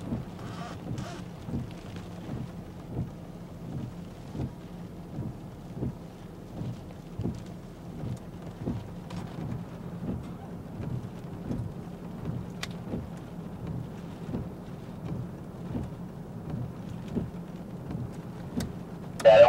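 Heavy supercell rain beating on a storm-chase vehicle, heard from inside, with a steady low rumble and a few sharp ticks.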